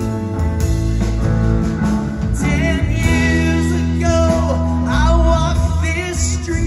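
Live band playing a song on electric guitar, drums and keyboards, with a woman singing lead, clearest from about two seconds in, heard from among the audience.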